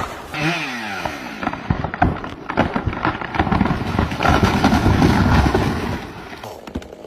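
Wood cracking and splintering as a tree breaks: a dense run of sharp snaps and cracks that is loudest about four to five seconds in, then dies down near the end.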